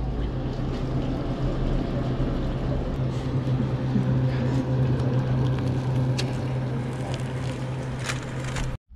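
A steady low machine hum, like an engine or motor running, over a constant noise haze, with a few faint clicks.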